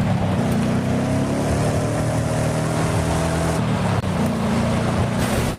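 Toy car steering wheel playing its engine sound effect: a steady low engine drone that shifts slightly past halfway and cuts off abruptly near the end.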